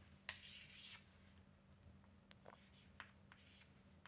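Faint chalk on a blackboard: a short scratchy stroke about a quarter of a second in, then a few light taps as letters are written, over a low steady hum.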